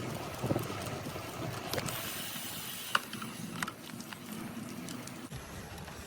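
Kent Nazz gravel bike rolling along a paved trail: a steady rumble of tyres and wind on the microphone, with a few sharp clicks and rattles from the bike, the loudest about three seconds in.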